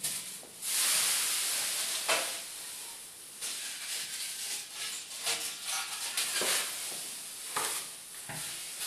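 Plastic sheeting rustling and crinkling in uneven surges, with no steady rhythm.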